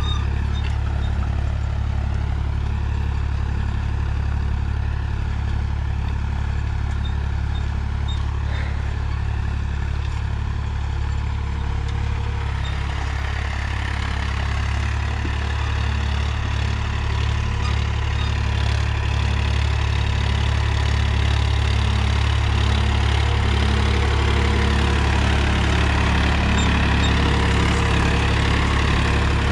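Swaraj 963 FE tractor's three-cylinder diesel engine running steadily under load while it pulls a disc harrow, held below 1500 rpm. It grows a little louder in the last third as the tractor comes close.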